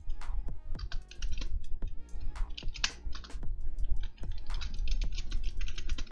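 Typing on a computer keyboard: a quick run of keystrokes.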